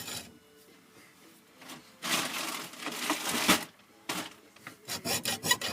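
Handling noise at a workbench while a thermostatic radiator valve is being stripped: about two seconds in, a rough rustling scrape that lasts about a second and a half, then a quick run of short clicks and scrapes near the end.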